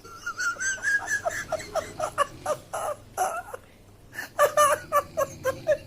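High-pitched giggling laughter in quick short bursts, several a second, with a brief break a little past halfway before it picks up again, louder.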